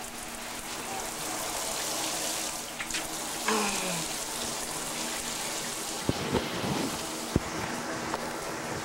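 Shower running, its spray hissing steadily onto the tub, with a few sharp knocks about six to seven seconds in.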